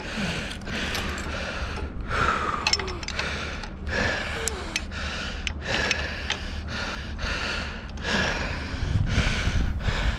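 A man breathing hard in quick, noisy gasps about once a second while exerting himself, with a few light metallic clicks from a wrench working on the masthead fitting.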